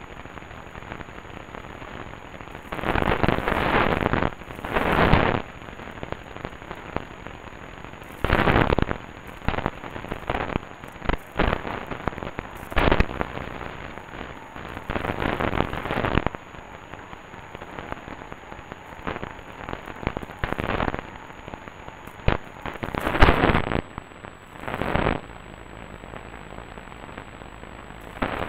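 AM radio receiver hissing steadily, broken by about ten irregular crashes and crackles of static, some sharp clicks and some over a second long: the bursts are lightning discharges from a thunderstorm picked up by the radio.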